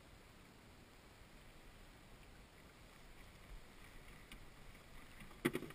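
Faint water lapping around a kayak, with a few light ticks and one short, sharp knock near the end.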